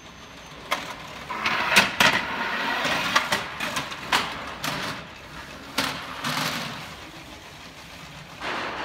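Sheet-metal trays of a gravity-driven karakuri rack in aluminium profile rolling and sliding over ball-transfer units, a rattling roll broken by several sharp metal clacks as parts knock into their stops.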